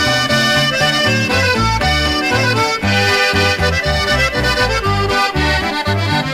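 Accordion playing the melody of an instrumental passage, over a bass line stepping between low notes in a steady beat.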